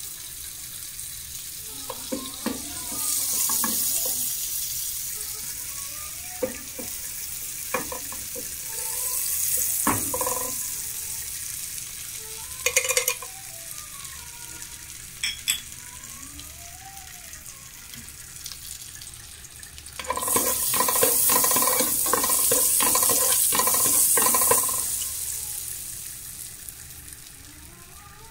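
Butter sizzling and foaming in a pan with whole spices (cardamom pods, cinnamon stick, cloves) frying in it. The sizzle swells and fades in waves, loudest about two-thirds of the way through, with a few sharp clicks along the way.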